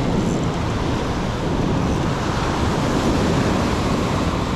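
Surf breaking and washing up a sandy beach, a steady rush of noise, with wind buffeting the microphone.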